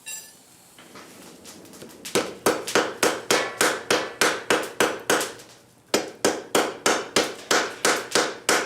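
Hand hammer blows on a hot, borax-fluxed folded steel bar, hammering it to try to forge-weld it. After a faint hiss, the blows come in a steady run of about three a second, stop briefly about five seconds in, then start again.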